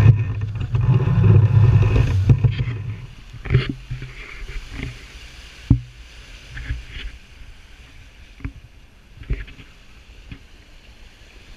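Wind buffeting the microphone over water rushing along the hull of a sailboat under sail in a fresh breeze. The heavy wind rumble drops away about three seconds in, leaving the wash of water and a few scattered knocks and slaps.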